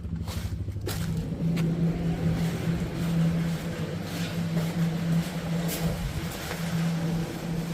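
A steady low mechanical hum, like a motor or engine running, with a few scattered clicks over it.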